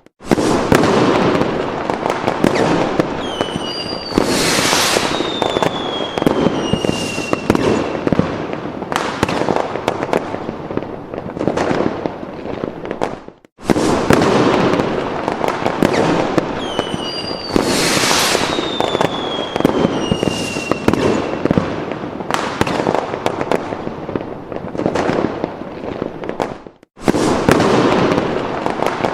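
Fireworks sound effect: continuous bangs and crackling with the falling whistles of rockets. The same stretch repeats about every 13 seconds, with a brief break before each restart.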